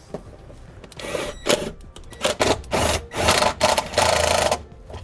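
Cordless drill driving self-tapping screws into the floor to hold the brake actuator's mounting plate, run in short bursts starting about a second in, then one longer run near the end.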